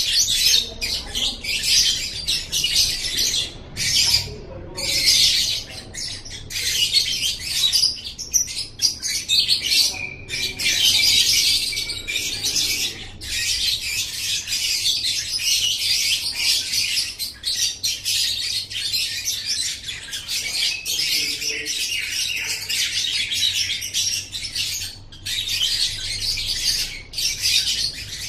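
Lovebird ngekek: a long, rapid, high-pitched chattering song that runs on almost without pause, broken only by a few brief gaps.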